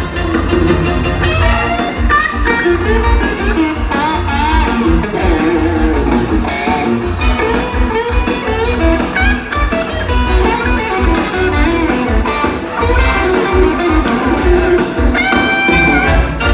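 Live stage-musical dance number played loud and steady with a regular beat, as performed by the band and cast on stage.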